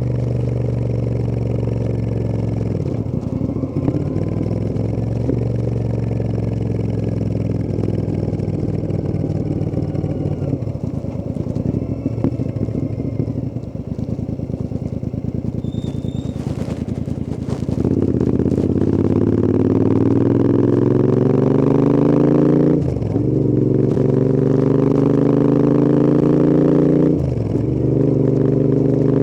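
Royal Enfield Interceptor 650's parallel-twin engine under way: holding a steady speed, then about two-thirds of the way through it accelerates hard, the note rising and dropping back twice at upshifts before climbing again.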